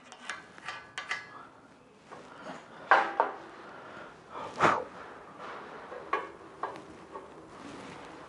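Scattered light metal clinks and scraping as cutting lines are marked out on steel channel lying on a steel welding table. A few clinks are sharper and ring briefly, the loudest about three and four and a half seconds in.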